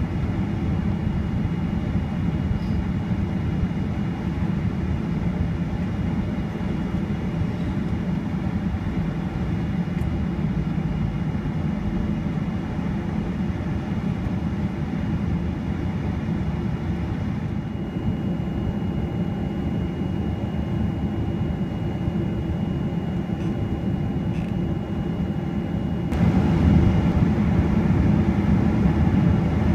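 Cabin noise inside a Boeing 737-800 while it taxis: the steady hum of its CFM56 turbofan engines at low thrust, with a thin, steady high whine. It gets louder near the end.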